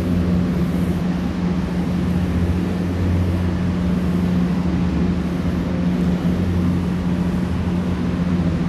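Steady low electrical hum with an even hiss over it, unchanging throughout.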